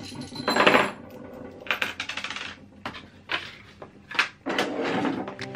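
Small metal hardware (bolts and a hex wrench) clinking and rattling in a hand, with light knocks and rustling from handling.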